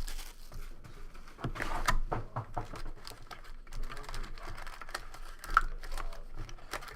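Packaging crinkling and tearing in irregular short rustles and crackles as a box of hockey trading cards is opened by hand.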